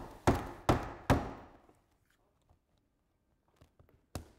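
Hammer driving nails through Onduline ridge pieces into the roof: three quick blows, a pause, then one more blow near the end.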